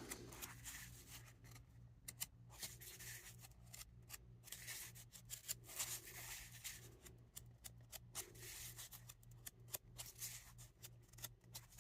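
Faint handling of cardboard trading cards: soft flicks, slides and scattered light clicks as the cards are moved through by hand, over a low steady hum.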